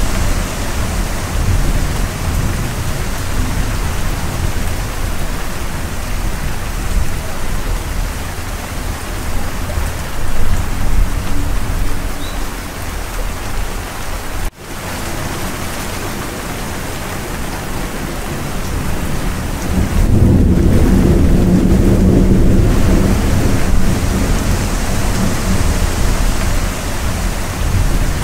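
Steady heavy rain with low rolling thunder, the thunder swelling louder about twenty seconds in. The sound cuts out for an instant about halfway through.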